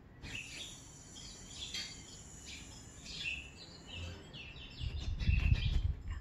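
Small birds chirping in quick, repeated short calls. A low rumble swells briefly about five seconds in and is the loudest sound.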